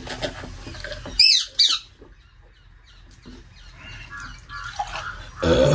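A bird gives two short, high, downward-bending squawks about a second in, then fainter calls, with a louder call starting near the end.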